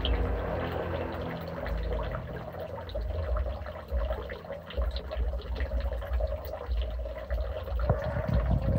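Pond water pouring steadily, with small splashes from koi crowding at the surface.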